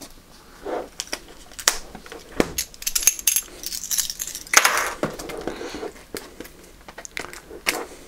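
Plastic shrink wrap being picked at and torn off a cardboard box: irregular crackling and crinkling with sharp clicks. A louder rustle comes about four and a half seconds in.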